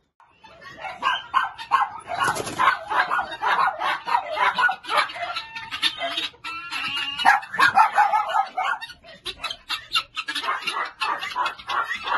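Many caged dogs barking, mixed with the clucking and calls of caged birds such as chickens, in a dense, continuous din that starts abruptly about half a second in.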